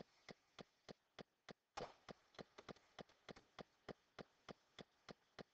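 Faint, evenly spaced clicks, between three and four a second, keeping a steady rhythm.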